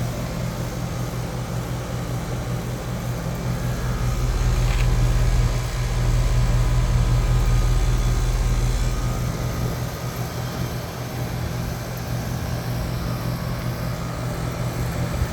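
Air-conditioning condensing unit running: a steady low hum, the low end louder for a few seconds in the middle.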